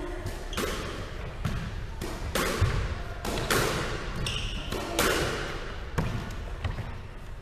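Squash rally: a squash ball hit by racquets and striking the court walls and floor, a string of sharp echoing smacks roughly once a second. The loudest is a heavier thud about two and a half seconds in.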